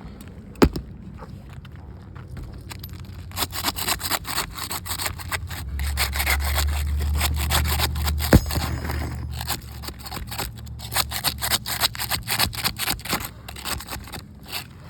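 A flat tool scraped back and forth under asphalt shingles to break the sealant strip, making rapid, repeated rasping strokes. There is a sharp knock near the start and another in the middle, and a low hum underneath in the middle.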